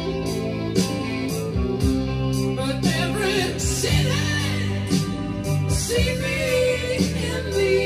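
A song with singing and guitar played back from cassette on a Tandberg TCD440A cassette deck.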